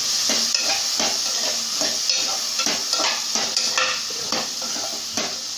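Boiled chickpeas sizzling in hot oil and spices as they are stirred: a steady sizzle with the spoon scraping and knocking against the pan at irregular moments.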